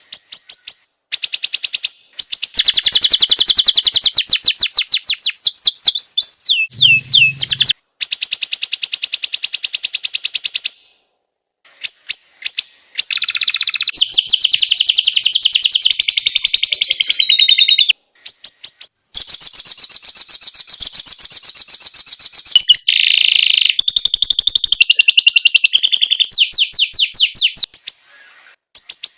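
Songbird song: long, high-pitched phrases of fast, rapidly repeated chirps and trills with a few sweeping whistled notes, broken by short pauses.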